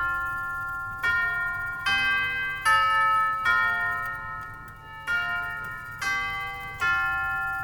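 Grandfather clock's brass tubular chimes playing a melody, one tube struck roughly every second. Each note rings on long and overlaps the next. A run of four notes, a short pause, then three more.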